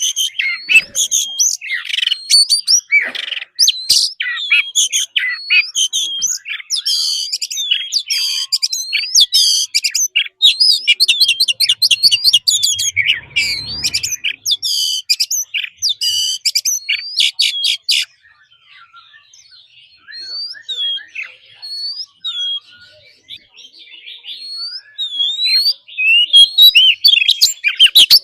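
Oriental magpie-robin in full song: a rapid, varied run of whistles and chirps, dropping quieter about two-thirds of the way through and loud again near the end.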